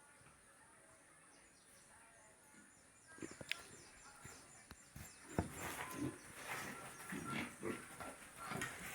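Pigs grunting, starting about three seconds in and coming more often in the last few seconds, with a couple of sharp knocks.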